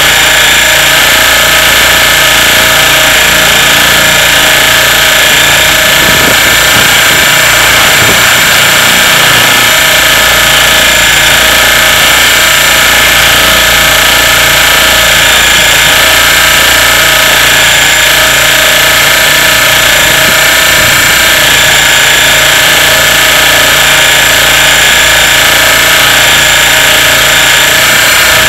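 Radio-controlled model helicopter in flight, its motor and rotors heard up close as a loud, steady whine at an even pitch.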